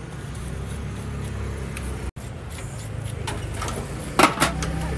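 Steady rumble of road traffic, with a few sharp knocks near the end, the loudest two close together.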